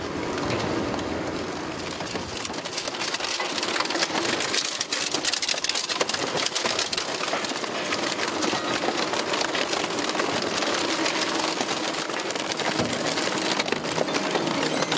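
Zato GF1500 Blue Devil low-speed, high-torque shredder tearing through a car body: a dense, continuous crackling and snapping of metal being torn and crushed, growing thicker about two seconds in.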